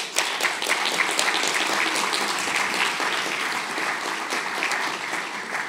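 A large audience applauding: dense, steady clapping that fades near the end.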